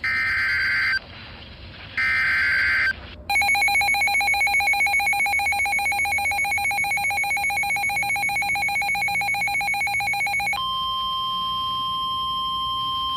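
NOAA Weather Radio Emergency Alert System activation from a weather radio receiver. It begins with two short bursts of the screeching digital SAME header about a second apart. Then comes about seven seconds of a harsh buzzing attention tone with a fast flutter, which changes a few seconds before the end to a steady single-pitched alert tone, announcing a severe thunderstorm warning.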